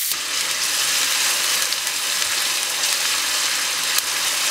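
Chopped onion sizzling in hot olive oil in a frying pan as it is sautéed: a steady frying hiss, with one light click about four seconds in.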